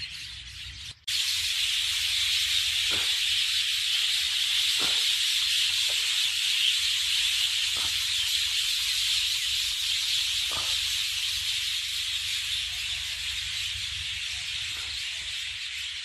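Large flock of mynas calling all at once, a dense, steady hiss-like chatter with a few separate calls showing through. It starts abruptly about a second in.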